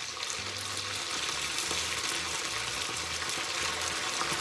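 Dried cooked rice in a strainer plunged into very hot vegetable oil in a paella pan, sizzling and crackling steadily as the grains fry and puff up. The sizzle swells during the first second, then holds.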